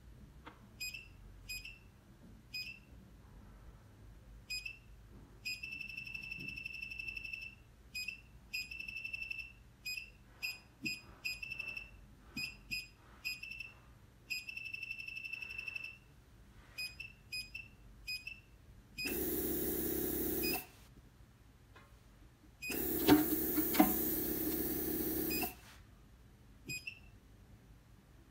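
Touchscreen control panel of a fractional RF microneedling machine beeping as the stylus taps it: many short high beeps, some held as longer steady tones. About two-thirds of the way through, two louder, noisy runs of the machine follow, about one and a half and two and a half seconds long, the second with two sharp clicks.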